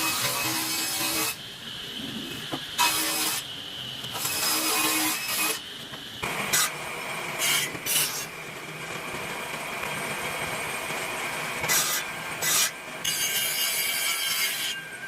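Hand tools working wood: a series of rasping strokes, each half a second to a second and a half long, with short pauses between them.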